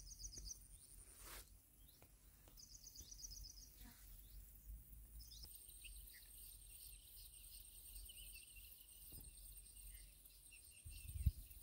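Quiet open-air ambience by the water. A bird gives short, high trilled calls three times, and a thin, steady, very high insect drone with faint chirping sets in about halfway through.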